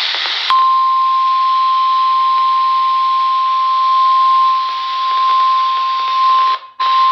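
NOAA Weather Radio's 1050 Hz warning alarm tone through a radio receiver's speaker: a single steady high beep over static hiss, announcing a warning. It follows a short burst of noise in the first half second, and cuts out for a split second near the end before resuming.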